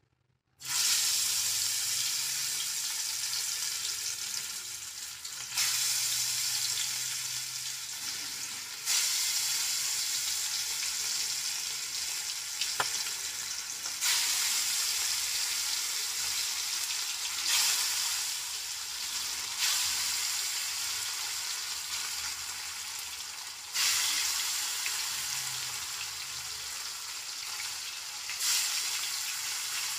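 Pieces of bhola fish, marinated in salt and turmeric, sizzling in hot oil as they are lowered into the pan one at a time. The sizzling is steady, with a sudden louder surge each time another piece goes in, about seven times.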